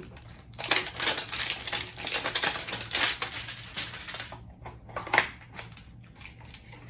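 Cardboard hanger box of trading cards being torn open: a few seconds of ripping and scraping cardboard, then a sharp snap a little after five seconds in.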